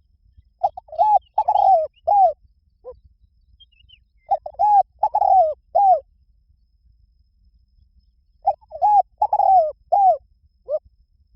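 Spotted dove cooing: three phrases about four seconds apart, each a quick run of four or five short coos.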